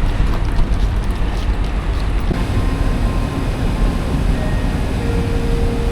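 Steady low rumble of a running vehicle with wind-like noise over it. The higher part of the sound changes abruptly a little over two seconds in, and a few faint held tones come in near the end.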